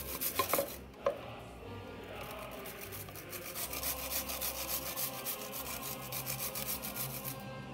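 Something being rubbed back and forth over a kitchen grater in quick, even rasping strokes, several a second, with background music underneath.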